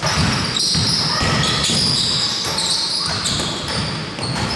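Basketball being dribbled and bounced on a hardwood court, with sneakers squeaking sharply on the floor as players move, in a large echoing indoor hall.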